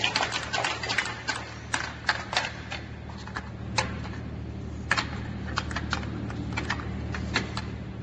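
ALM-11300 automatic labeling machine running: a steady low motor hum under irregular sharp clicks and clacks of the plastic soup cups moving through the conveyor. The clicks come thick and fast at first and grow sparser after about three seconds.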